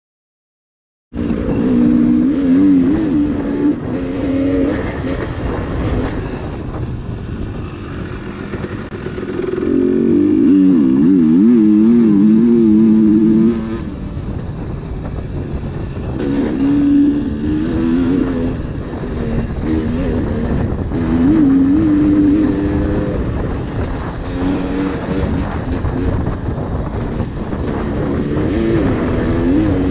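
Enduro dirt bike engine being ridden off-road, the revs rising and falling as the throttle is worked. It starts about a second in, and a long, hard pull beginning about ten seconds in cuts off abruptly a few seconds later.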